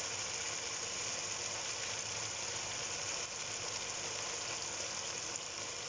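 Diced chicken sizzling steadily in hot oil and sauce in a wok.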